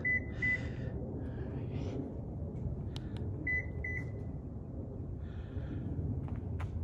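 Two pairs of short, high electronic beeps, the second pair about three and a half seconds after the first, over a steady low rumble.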